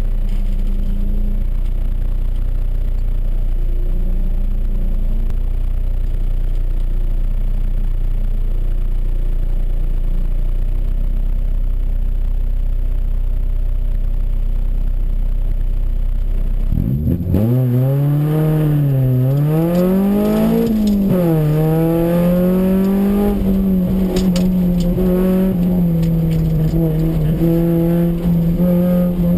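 Honda CR-X autocross car's four-cylinder engine heard from inside the cabin, idling steadily at first. About seventeen seconds in the car launches: the revs climb sharply, fall and climb again twice, then hold steady and high under hard driving.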